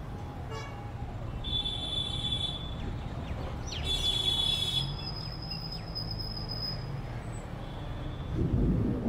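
Slow city traffic heard from a moving car: a steady low rumble of engines and tyres, with high-pitched vehicle horns tooting twice, about one and a half seconds in and again about four seconds in.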